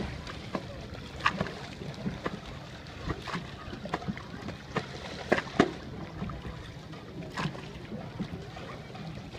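Boat on a river: a steady low rumble with irregular sharp knocks and clicks about every second.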